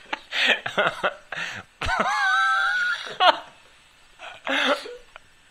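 A person's voice snickering and making non-word vocal sounds, with a high, wavering held note about two seconds in and a sharp click about a second later.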